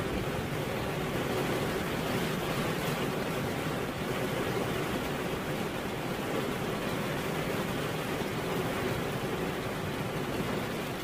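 Steady rain, an even hiss with no single drops or other sounds standing out.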